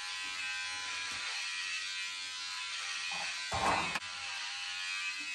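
Battery-powered hair clipper running with a steady buzz, cutting hair at the nape; its users find it dies a bit when it meets the hair and wonder whether it needs charging. About three and a half seconds in, a short scuffing noise ends in a click.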